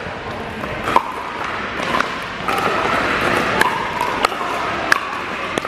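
Pickleball paddles striking a hard plastic ball during a rally: a string of sharp, hollow pops about once a second over the background noise of other courts in play.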